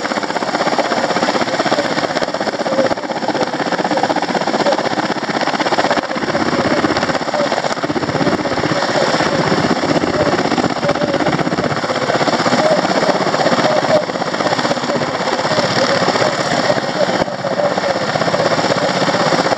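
Helicopter hovering low: steady, loud engine and rotor noise that doesn't let up.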